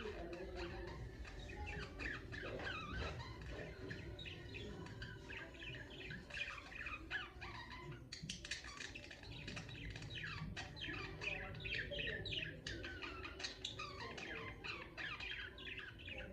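Pet budgerigars chirping and chattering: a dense run of short, quick chirps that grows busier in the second half.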